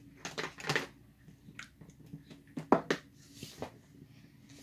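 A scattering of light clicks and knocks from paint supplies being handled while black fabric paint is fetched, the loudest knock about two and a half seconds in.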